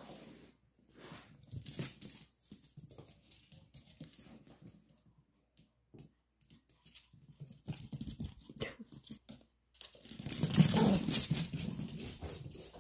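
Two Pomeranians playing chase: paws scrabbling and skittering on a wooden floor and jute rug, with scuffling and rustling as they tussle, in short scattered bursts. A louder stretch of scrambling comes about ten seconds in.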